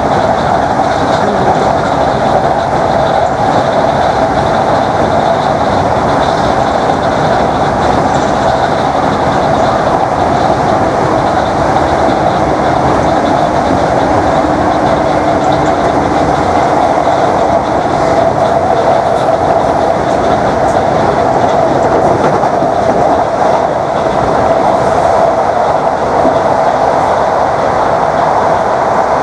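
Class 321 electric multiple unit's DC traction motors under way at speed, a loud steady motor whine over the rush of the running gear and wheels on the rails, with the whine settling onto a steadier pitch near the end.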